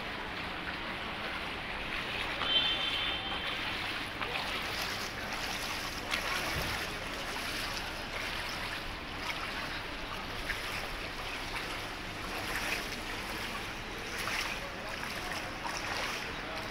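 Shallow floodwater sloshing and splashing as people wade through it, a steady watery rushing hiss. About two and a half seconds in a short high tone sounds, and a dull thump comes a few seconds later.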